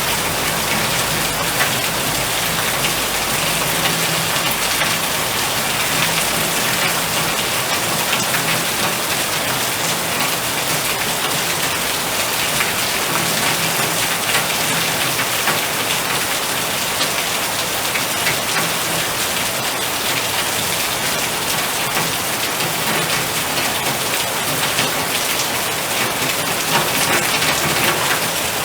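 Heavy storm rain falling steadily, a dense patter of drops.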